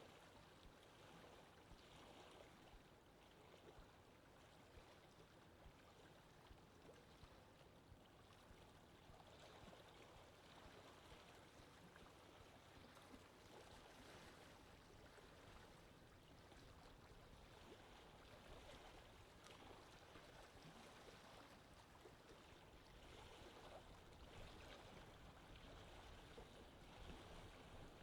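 Faint, steady water ambience, an even wash of moving water with no distinct bird calls.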